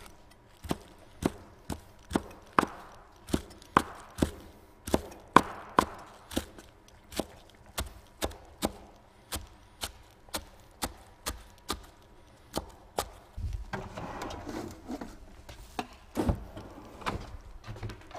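Chef's knife chopping green herbs on a wooden cutting board: a steady run of sharp knocks a little under two a second. About three-quarters through there are a few seconds of softer rustling, then a few more chops.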